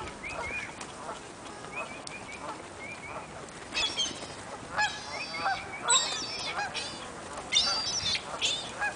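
A flock of seagulls calling, many short honking calls overlapping, sparse at first and then louder and more crowded from about four seconds in.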